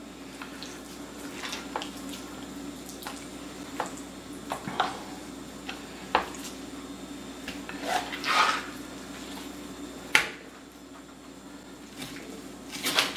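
Knife tapping and knocking on a cutting board in scattered, irregular strokes as a raw chicken is cut into pieces, with a longer scrape a little after eight seconds in. A steady low hum runs underneath.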